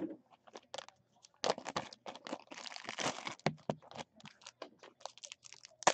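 Plastic wrapper of a pack of baseball cards crinkling and tearing as it is handled and pulled open, with irregular crackles and short rips.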